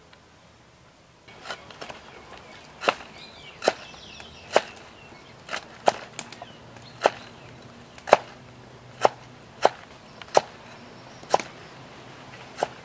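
A large knife chopping garlic cloves on a wooden chopping board: about a dozen sharp knocks of the blade hitting the wood, roughly one a second and unevenly spaced, starting about a second in.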